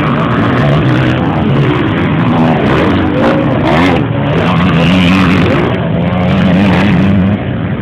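Motocross motorcycle engines revving, several bikes at once, the pitch rising and falling as they accelerate and back off, easing off near the end.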